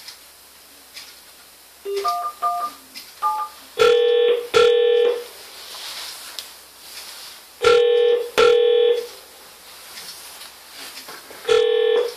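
Polycom SoundStation 2 conference phone sounding a few short keypad dialing tones, then a double-beat ringback tone through its loudspeaker, repeated three times while the dialled line rings.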